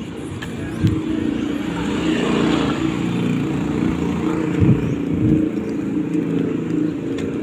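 Engine of a small road vehicle running steadily while being ridden, heard from on board, with road noise. There are a few low thumps, about a second in and again near the five-second mark.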